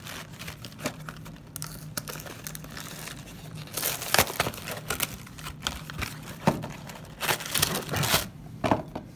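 Cardboard box of a frozen pot pie being handled and opened, and the plastic-wrapped pie pulled out: irregular crinkling and rustling of cardboard and plastic wrap that gets louder about four seconds in.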